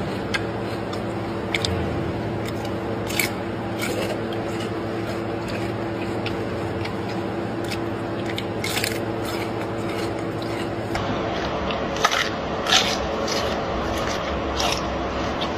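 A gorilla biting and chewing crisp green leaves, with scattered sharp crunches and snaps over a steady low hum.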